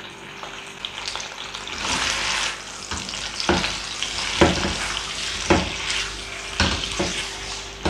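Raw chicken pieces sizzling in hot oil in a wok as they are stirred with a silicone-headed spatula. The spatula knocks against the pan about six times in the second half.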